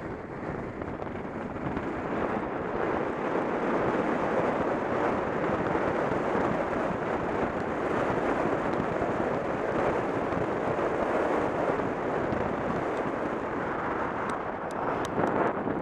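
Wind rushing over the microphone, mixed with the road noise of a moving vehicle. The sound grows louder about two seconds in, then holds steady. A few faint clicks come near the end.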